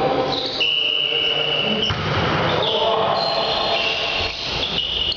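Athletic shoes squeaking on a sports hall floor during volleyball play: several high squeaks of differing pitch, one lasting over a second, over the echoing noise of the hall.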